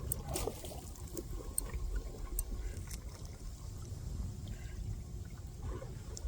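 Water splashing and trickling, with a few sharp clicks in the first half, over a steady low rumble of wind on the microphone.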